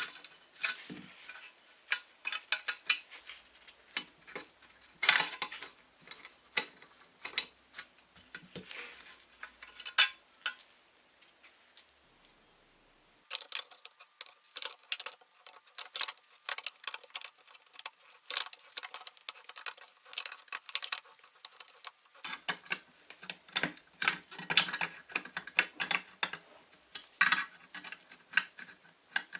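Irregular metallic clicks, taps and clinks of hand tools and small steel parts as a rusty pressed-steel toy truck is taken apart. There is a short quiet gap about twelve seconds in, and a faint steady hum sits under the tapping for several seconds after it.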